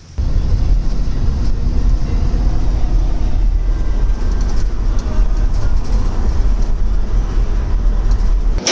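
Chevrolet Express 2500 van driving on the road, a steady low rumble of road and drivetrain noise. No knocking comes from the rear end: the self-locking rear differential has been converted to an open one.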